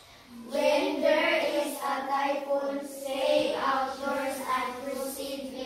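A class of children singing together in unison, with long held notes.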